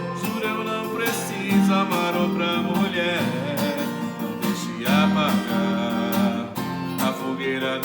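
Acoustic guitar strummed in a steady rhythm, with a few held, wavering sung notes over it.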